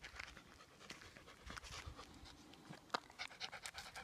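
Large dog panting steadily with its mouth open, a quick run of short breaths, with a sharp click about three seconds in.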